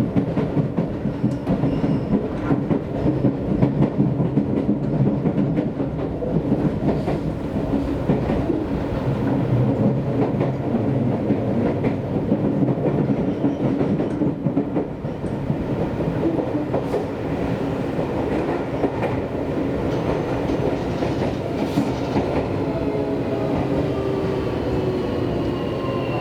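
Seibu Railway electric train running on the line, a steady rumble of wheels on rail with clickety-clack. Near the end a motor whine rises in pitch as the train picks up speed.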